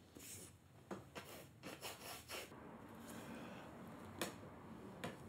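Long-handled paintbrush working oil paint onto a canvas on an easel: a run of short, faint brushing strokes in the first two seconds or so, then softer rubbing and a couple of light taps near the end.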